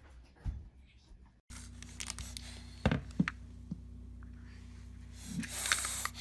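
Plastic slicker brush being handled: a few sharp clicks and a stretch of rustling near the end. A steady low hum begins about a second and a half in.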